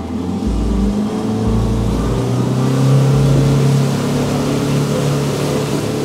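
Speedboat engine running at speed, its note climbing a little in the first few seconds and then holding steady, over the rush of water and wind past the hull.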